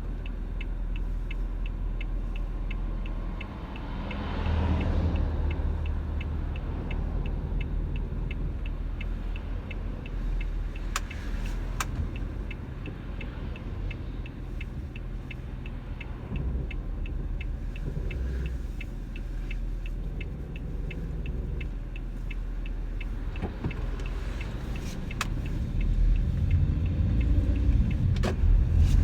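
Toyota Hiace van running with a steady low rumble, over a regular light ticking of about three ticks a second. The abnormal noise it used to make is gone. The rumble grows louder near the end.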